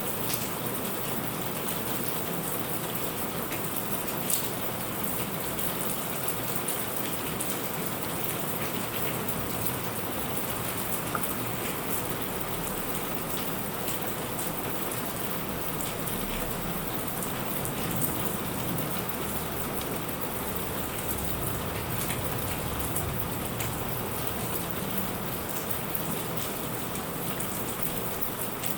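Steady rain falling, with many sharp drop ticks spattering on nearby surfaces.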